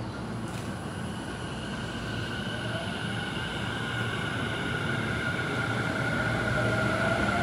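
Electric commuter train approaching a station platform, a low rumble with a steady high whine over it, growing steadily louder.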